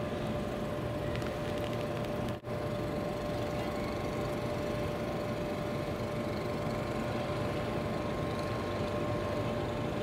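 A steady mechanical hum with a constant tone over a low rumble. It drops out for a moment about two and a half seconds in, then carries on unchanged.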